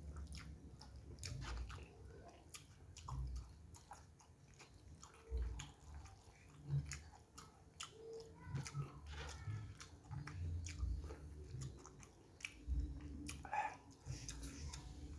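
A man chewing a mouthful of noodles and rice: wet chewing with irregular smacks and clicks.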